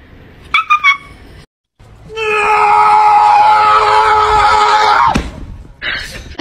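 A small dog lets out a long, loud, high-pitched scream-like cry held on one steady pitch for about three seconds, then dropping away sharply at the end.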